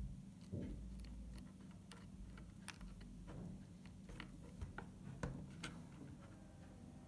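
Light, irregular plastic clicks and taps, a dozen or so, as stiff new T5 LED bulb holders are pushed and twisted into the back of an instrument cluster's circuit board and the plastic cluster housing is handled. A faint low hum lies underneath.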